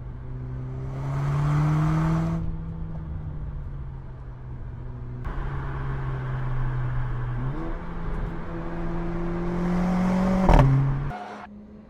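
Mercedes-AMG A45 S's 2.0-litre turbocharged four-cylinder engine running under acceleration, its note rising in pitch in several stretches. A single sharp crack comes about ten and a half seconds in, and the engine sound drops away soon after.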